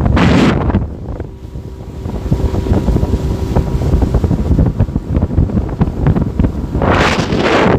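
Wind buffeting the microphone aboard a small boat, a constant low rumble, with two louder rushes of noise at the start and near the end. A faint steady hum sounds underneath for a couple of seconds about a second in.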